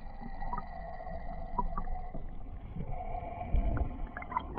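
Muffled underwater sound from a camera submerged in a spring: a steady low rumble of water with scattered small clicks and ticks.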